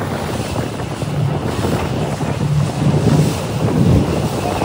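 Wind buffeting the microphone on a moving boat, over the boat's engine running and water rushing along the hull, in uneven gusts.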